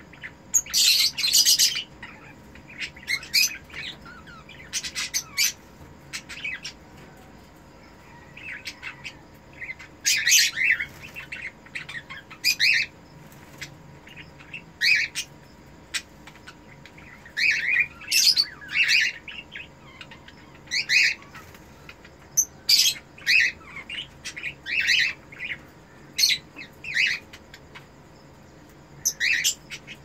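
Ino cockatiels calling in short bursts of chirps and squawks, a burst every second or two with brief gaps: the chirping call of a breeding pair mating.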